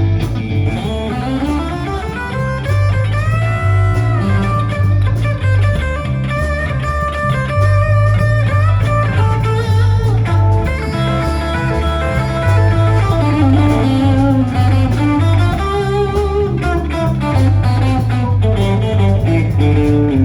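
Instrumental break in a blues-flavoured worship song: a lead guitar plays a melodic solo with bending notes over a steady bass line.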